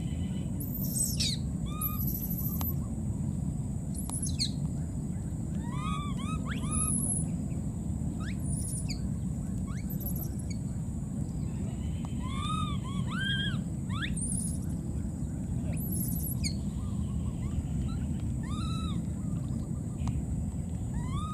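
Outdoor wetland ambience: a steady low rumble with many short chirping calls scattered through, some rising and falling with overtones, others thin and very high.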